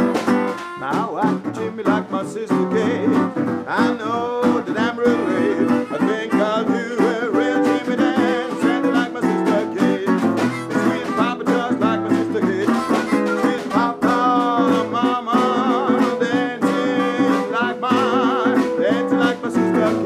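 Live acoustic blues jam: guitar strummed in a steady rhythm with a harmonica playing bending, wailing notes over it.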